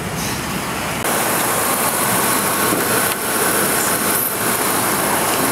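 Ford Excursion's engine idling: a steady noise that gets louder about a second in and then holds.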